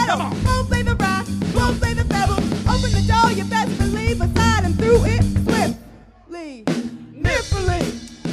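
Live band music driven by a drum kit, with snare hits and rimshots. About six seconds in the band drops out almost entirely for about a second, then comes back in.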